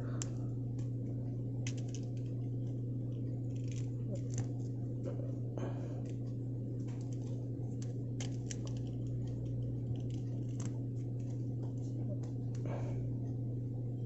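Scattered small metal clicks and scrapes as a Zorro lighter insert is worked into a Zippo-style lighter case, a stiff fit. A steady low hum runs underneath.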